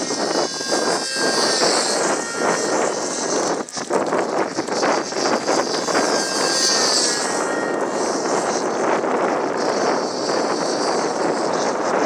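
Control-line aerobatic model plane's motor and propeller buzzing as the plane circles on its lines, the sound swelling and fading twice, about five seconds apart, as it passes on each lap, with its pitch gliding as it goes by.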